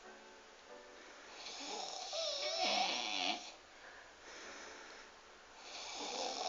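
A man snoring heavily, harsh rasping snores with a wavering grunting tone, pig-like. One long loud snore starts about one and a half seconds in, a softer one follows, and another builds near the end.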